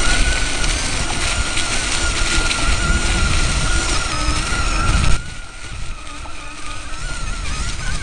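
Electric off-road vehicle's motor, wired in Y (wye), whining at a steady pitch while riding over a dirt trail, with a low rumble and wind noise. About five seconds in, the rumble and wind drop suddenly and the whine carries on quieter and wavering.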